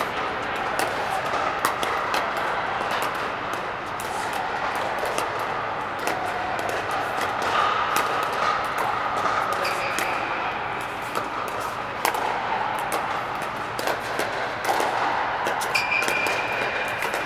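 Pickleball paddles hitting plastic balls in rallies on several courts: an irregular run of sharp pocks, echoing in a large indoor dome over a constant background murmur.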